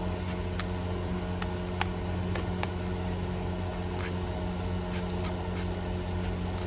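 Scissors snipping through thin cured epoxy resin flash, a scattering of small sharp clicks at irregular intervals, over a steady low hum.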